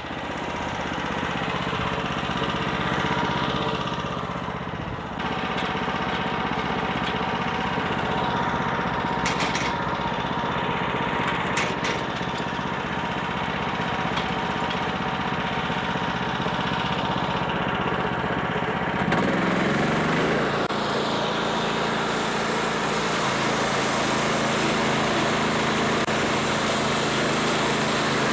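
Engine of a homemade band sawmill running steadily. About twenty seconds in, its note shifts and settles at a new steady pitch.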